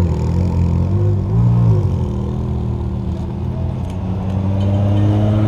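A car engine with a deep, low note running loudly, briefly blipped up and back about a second in, then climbing slowly in pitch near the end.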